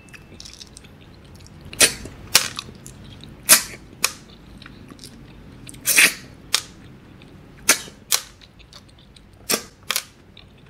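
Loud, sharp sucking slurps as the meat and gravy are sucked out of siput sedut, small freshwater snails cooked in coconut gravy. They come often in quick pairs, every second or two, with faint chewing in between.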